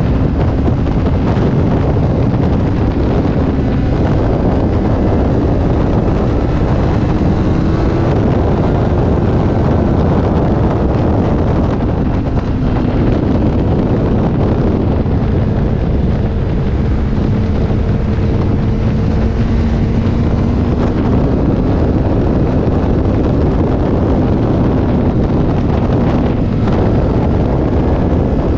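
Motorcycle engine running while riding, its note drifting slowly up and down, nearly buried under loud, steady wind noise on the microphone.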